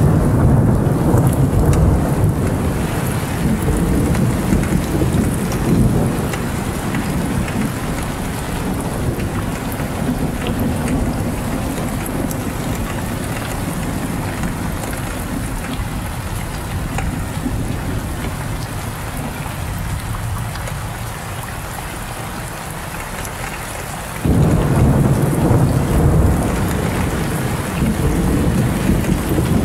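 Heavy rain falling with deep rolling thunder. The rumble eases off, then a new roll of thunder breaks in suddenly near the end.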